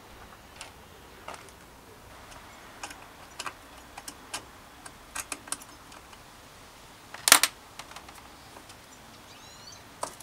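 Scattered sharp metallic clicks and clinks of an Allen key and small bicycle parts being handled: a Shimano Deore shifter on the handlebar, then a rear derailleur being taken apart. One louder clatter comes about seven seconds in.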